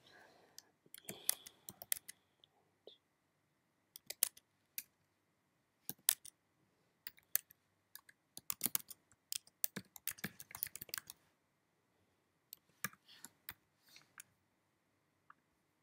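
Computer keyboard keys clicking as someone types, in uneven bursts of quick keystrokes with short pauses between them.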